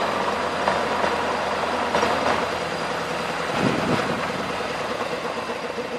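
Turbocharged T-40 tractor's air-cooled diesel engine running steadily under load, driving a rear-mounted rotary tiller through the soil.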